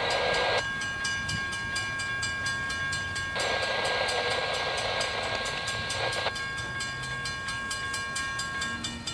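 Grade-crossing warning bells ringing in quick, even strokes. A train horn sounds twice over them: a short blast at the start and a longer one of about three seconds in the middle. The bells stop near the end.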